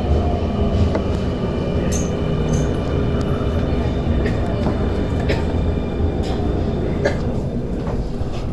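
Keio 9000 series electric train heard from inside the car as it brakes into a station: low wheel and track rumble under the inverter motor tones, some of which fall in pitch as the train slows, with a few sharp clicks and squeaks from the running gear.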